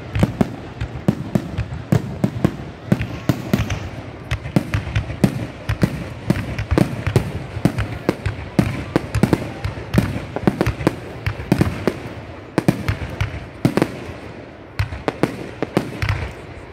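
Aerial fireworks display: firework shells bursting in rapid succession, several sharp bangs a second.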